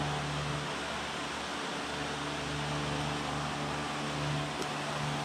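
Steady whirring hum of an electric floor fan running, with a faint click near the end.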